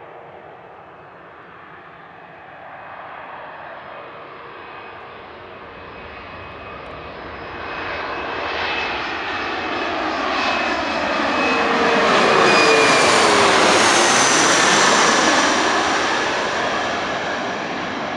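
Twin rear-engined regional jet on landing approach flying low overhead. Its turbofan noise builds from a faint rumble to its loudest about two-thirds of the way through, with a whine that drops in pitch as it passes, then fades as it moves away.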